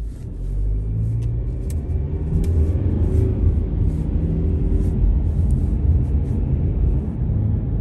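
Low rumble of road and engine noise inside a moving car's cabin, with faint scattered clicks.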